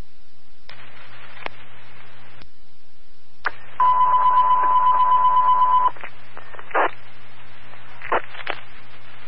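Fire department dispatch radio heard through a scanner: short keyed bursts of static hiss with clicks, and about four seconds in a pulsing beep tone lasting about two seconds.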